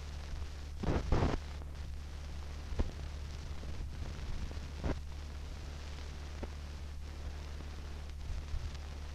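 Background noise of an old recording's soundtrack: a steady low hum with faint hiss, broken by crackles and pops, a short cluster about a second in and single pops near three and five seconds.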